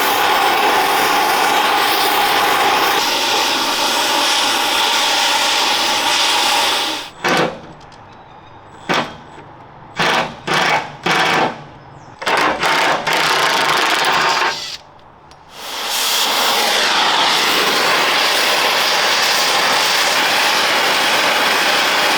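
Power tool working on the armour plate's bolts. It runs steadily for several seconds, then in a series of short bursts with pauses, then steadily again.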